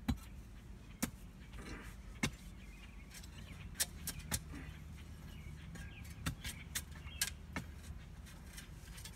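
Hand digging tool striking soil and roots in irregular, sharp knocks, about nine in all, while roots are dug out by hand.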